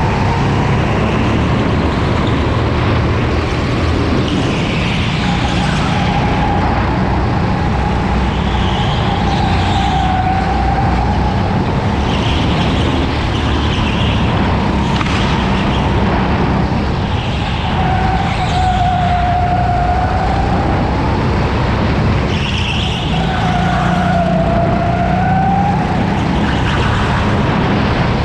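Racing go-kart running at speed, heard onboard: a steady rumble with a high whine that dips and rises again several times as the kart slows for corners and accelerates out.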